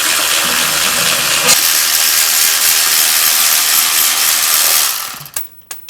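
Loud, steady hissing noise that fades out about five seconds in, followed by a few sharp clicks.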